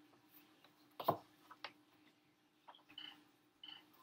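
Chef's knife slicing a yellow bell pepper on a plastic cutting board: a few sharp, separate knocks of the blade on the board, the loudest about a second in.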